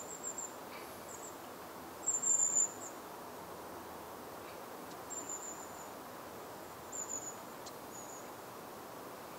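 Insect chirping in short, high-pitched trills, five times, the longest and loudest about two seconds in, over a steady hiss.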